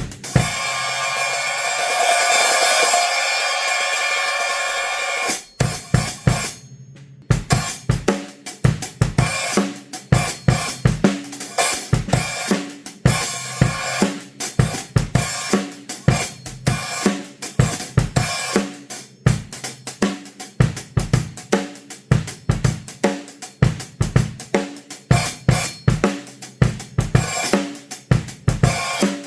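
A cymbal from a Zildjian A City Pack set is struck and rings out for about five seconds, shimmering. After a brief pause, a drum-kit groove starts and carries on: steady cymbal and hi-hat strokes with kick and snare hits.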